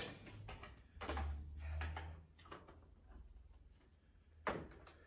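Quiet handling noises at a kitchen counter: containers and bowls being moved, with one sharp knock about four and a half seconds in.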